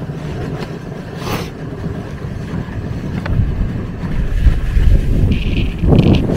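Sled runners rumbling and scraping over packed snow during a fast downhill run, with wind buffeting the microphone; the rumble grows louder in the second half.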